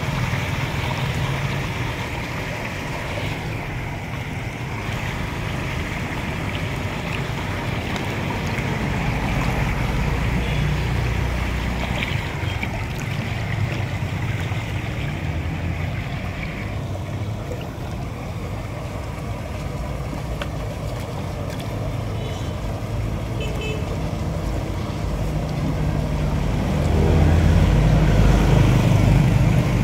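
Rainwater in the street draining steadily through a cleared curb-inlet grate into the culvert, as a continuous rush of running water that grows louder near the end.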